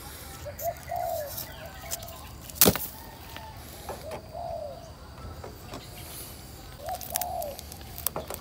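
A dove cooing in short, repeated low phrases, with a sharp knock about two and a half seconds in and a few fainter clicks.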